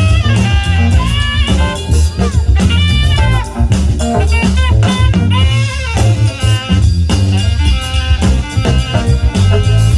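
A band playing an instrumental tune, with a strong bass line and drum kit under a lead line that bends in pitch.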